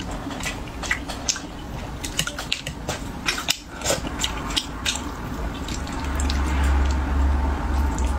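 Wet, squishy chewing and mouth sounds of a person eating spicy braised fish, with many short sharp clicks and smacks. A low rumble comes in about six seconds in.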